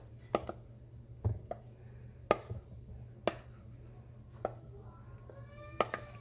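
Sharp knocks of a spoon against a mixing bowl, about one a second, as thick cake batter is scraped and poured out into a pan. A long pitched call starts near the end.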